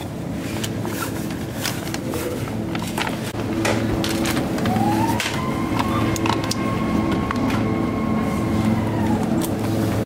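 Steady hum of supermarket refrigerated display cabinets, with clicks and rattles of items and a plastic basket being handled. About halfway through, a tone rises, holds for about five seconds and falls away.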